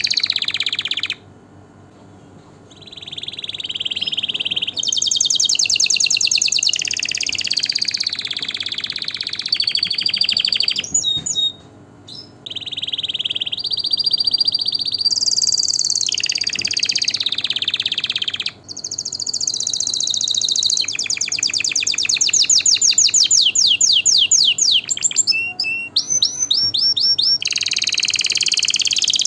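Domestic canary singing long phrases of rapid trills and rolls, breaking off briefly about a second in and again near the middle.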